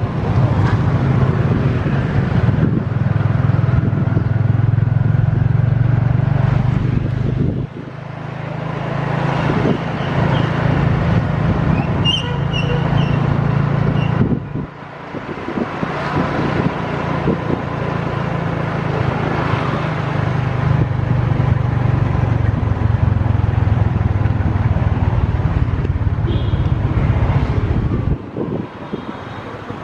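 Motor vehicle running along a road in traffic, its engine easing off briefly a few times. A short high-pitched tone sounds about twelve seconds in.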